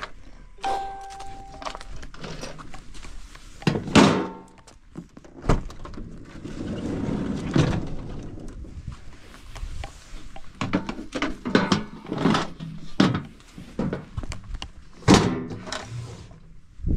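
Goods being loaded into a van's cargo area: a run of thunks and knocks as things are set down and shifted, with a loud ringing metal clang about four seconds in. A short steady tone sounds about a second in.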